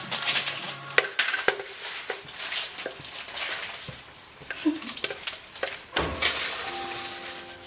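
A plastic spatula scraping and knocking inside a plastic blender jar while thick mousse mixture is poured out, with irregular clicks and scrapes. Background music comes in near the end.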